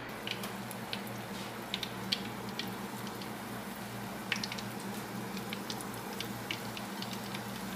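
Breaded shrimp frying in hot oil in a pan: a steady sizzle with irregular sharp crackles and pops of spattering oil, over a low steady hum.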